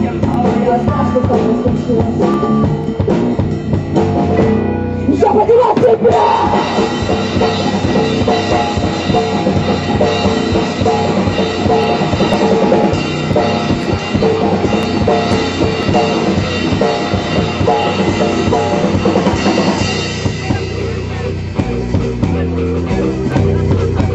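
Live rock band playing on an open-air stage, with the drum kit prominent; the music gets louder and fuller about six seconds in.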